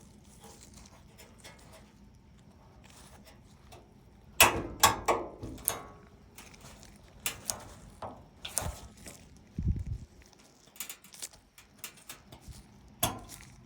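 Irregular clicks and knocks of dryer parts being handled and fitted, with a cluster of sharp knocks about four to six seconds in and a dull thud near ten seconds.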